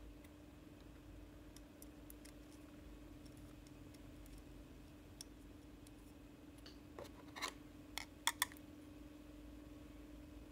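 Small clicks and taps of circuit boards and brass standoffs being handled and fitted together, with a cluster of sharper clicks starting about seven seconds in, the loudest two close together. A faint steady hum underneath.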